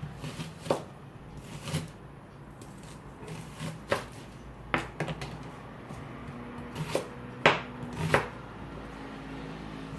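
Kitchen knife cutting a red onion into rings on a chopping board: irregular sharp knocks of the blade on the board, roughly a second apart, the loudest about seven and a half seconds in.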